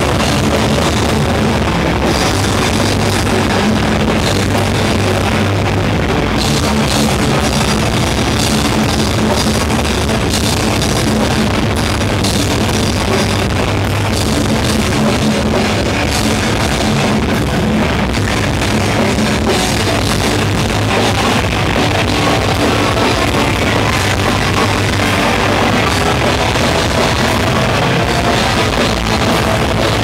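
Rock band playing live on stage: electric guitars over a drum kit, loud and unbroken.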